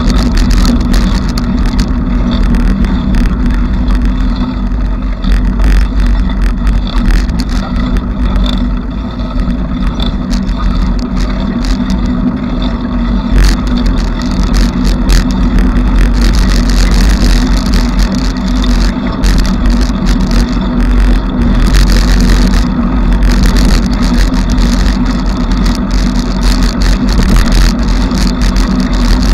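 Bicycle riding noise: a steady, loud low rumble with frequent small clicks and rattles from the bike as it rolls along.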